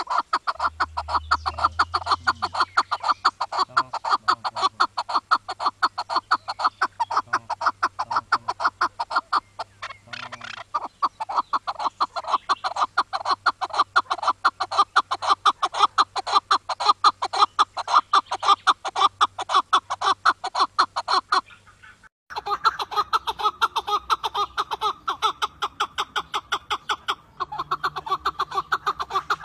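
Chukar partridge calling a fast, unbroken string of short clucking notes, several a second, with a brief break about three quarters of the way through.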